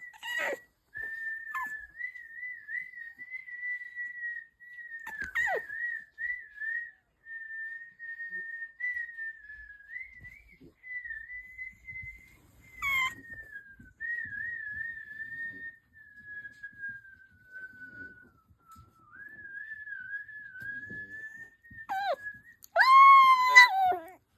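A person whistling a long, wavering tune that stays around one pitch and slowly sags in the middle. A puppy answers with a few short, falling whimpers and gives a louder, longer cry near the end.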